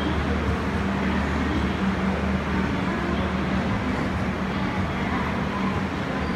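Rajdhani Express passenger coaches rolling slowly along a platform: a steady rumble of wheels on rail with a steady low hum underneath.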